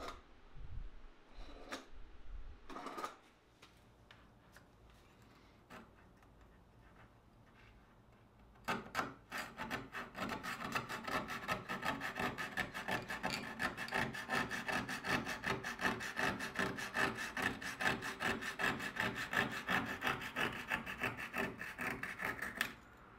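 A few knocks and clicks as bar clamps are set, then from about nine seconds in a small hand file scrapes in rapid strokes along the edge of a thin strip of wood, stopping just before the end.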